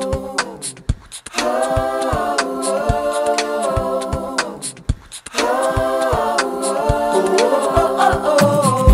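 Background music: layered a cappella voices singing held chords over a steady clicking beat. The chords drop out briefly twice, and a bass line comes in near the end.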